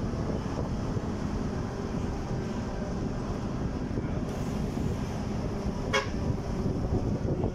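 Steady rumble of a moving vehicle's engine and road noise, heard from on board with wind on the microphone. A brief sharp click comes about six seconds in.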